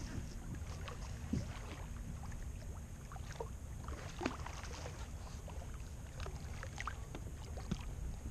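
Kayak moving on calm water: small scattered splashes and ticks of water against the hull over a steady low rumble of wind on the microphone.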